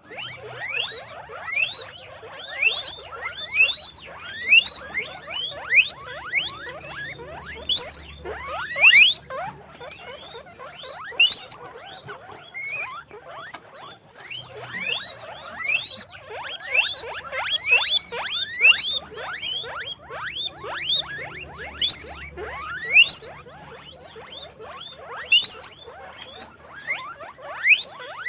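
Guinea pigs wheeking: a continuous run of short, rising, whistled squeals, several a second, with overlapping calls and louder clusters every second or two.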